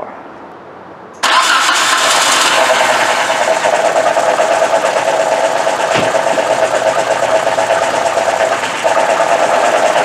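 1995 Nissan Sentra's four-cylinder twin-cam 16-valve engine starts suddenly about a second in, then runs rough with a steady drone. The engine is misfiring and shaking, which the mechanic believes leaves it running on only two cylinders.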